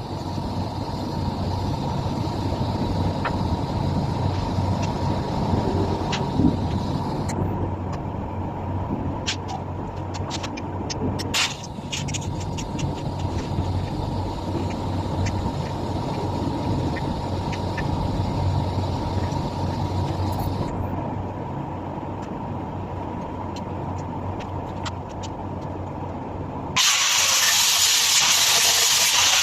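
Steady mechanical hum with scattered clicks and knocks; a loud hiss starts near the end.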